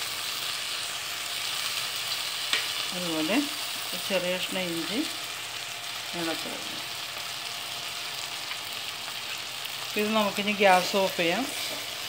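Chicken chukka frying in an aluminium pot over a medium flame, giving a steady sizzle. A voice speaks briefly a few times over it, around three to five seconds in and again near the end.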